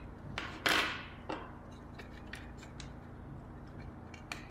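Hands handling an opened clock radio's plastic case and circuit board: a few sharp clicks and a short scraping rub about a second in, over a low steady hum.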